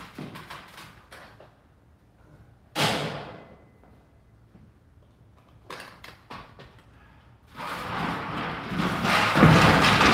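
Steel framing studs being knocked back into their track: a light knock, then a sharp metallic thunk about three seconds in. Near the end comes a longer, louder stretch of scuffing and rattling.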